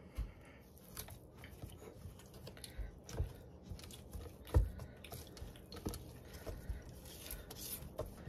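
Scraping down the sides of a mixing bowl of thick cookie dough with crushed potato chips and walnuts: soft scraping and faint crunching, with a few soft knocks against the bowl.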